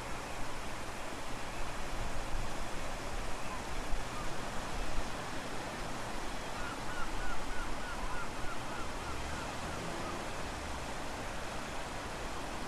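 Steady rushing noise of surf and wind. In the middle comes a quick run of about ten faint chirps.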